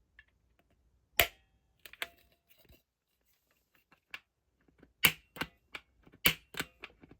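Grill spark igniter set into a soup can, pressed over and over to make it spark: a string of sharp, irregular clicks, a few at first and then coming faster in the second half.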